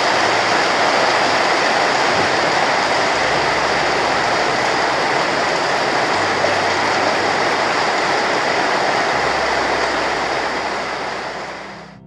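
Large crowd of about two thousand men applauding steadily, fading out near the end.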